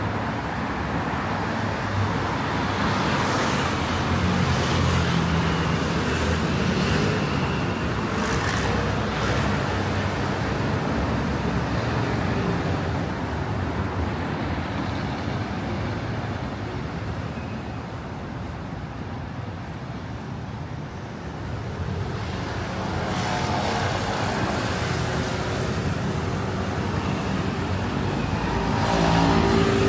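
City street traffic: cars and other motor vehicles running past in a steady wash of road noise. It eases off a little past the halfway point, then grows louder again as vehicles pass near the end.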